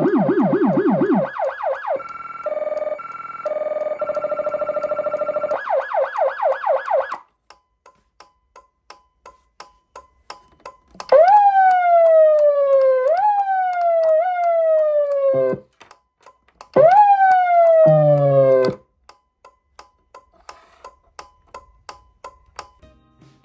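Electronic emergency-vehicle siren on a low-frequency siren amplifier driving a woofer. It runs fast yelp-style sweeps with a deep rumble tone underneath in the first second, then a steady stepped tone and more rapid sweeps. After a gap come two bursts of falling tones that jump back up in pitch, about halfway and near three quarters of the way through, the second with a brief low rumble.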